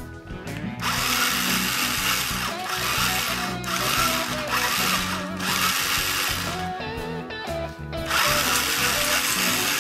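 Motor-driven wooden Gatling-style rubber band machine gun firing in about five bursts of one to two seconds each, a rapid whirring rattle, over background music.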